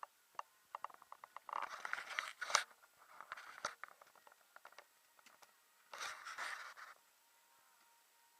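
A run of small clicks, then three bursts of rustling, the last about six seconds in.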